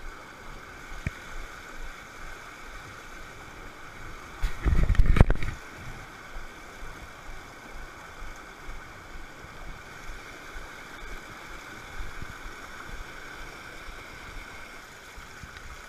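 A mountain stream rushing steadily over boulders. A little after four seconds in, a brief loud low rumble lasting about a second stands out above the water.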